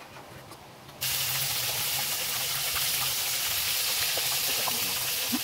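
Fish frying in hot oil in a wok over a wood fire: a loud, steady sizzle that starts abruptly about a second in, after a quiet stretch with a few faint ticks.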